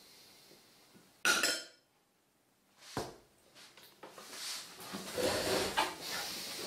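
Metal spoon clinking and scraping against a ceramic bowl. A sudden loud scrape comes a little over a second in, a sharp click follows at about three seconds, and then a longer stretch of clatter runs from about four seconds on.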